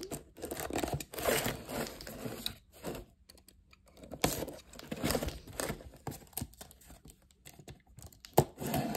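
Utility knife slitting and tearing the clear plastic shrink wrap on a cardboard box, with crinkling of the plastic, in short irregular bursts with pauses between them.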